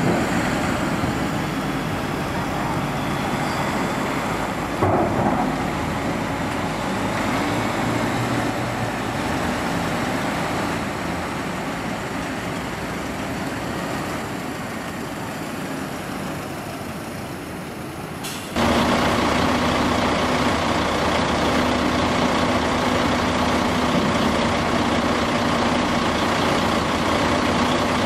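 Foden cattle lorry's diesel engine running as it creeps forward, with a brief loud burst about five seconds in. About two-thirds through, the sound changes abruptly to a louder, steady diesel engine running with a constant hum.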